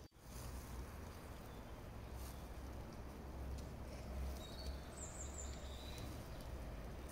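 Outdoor ambience with a steady low rumble. A few short, high bird chirps come about four to five seconds in.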